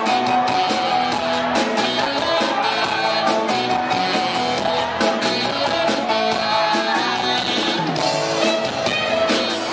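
Live pop-rock band playing through a PA: electric guitars and keyboards over a steady beat, with no words sung.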